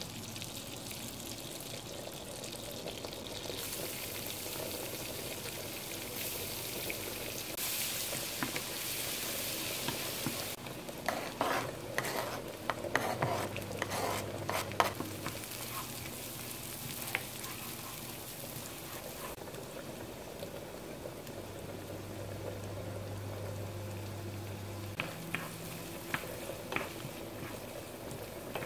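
Butter and oil sizzling in a nonstick frying pan, the hiss growing louder a few seconds in, as diced onion and then chopped luncheon meat fry. A wooden spatula scrapes and taps against the pan as the food is stirred, in a busy run about eleven seconds in and again near the end.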